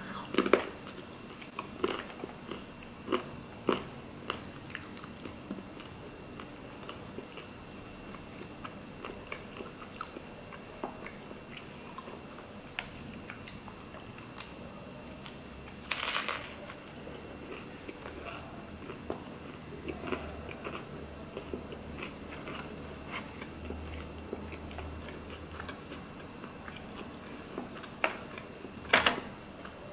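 Close-miked mukbang eating: crunching and chewing of crispy fries and a Tofurkey veggie burger, a steady run of small crisp crunches with a few louder bites, the loudest about midway and near the end.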